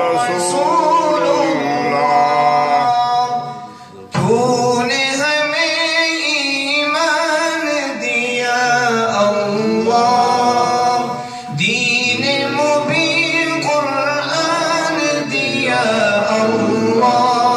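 A man chanting devotional verse solo into a microphone, in long ornamented melodic lines. The voice breaks off briefly about four seconds in and dips again near the middle.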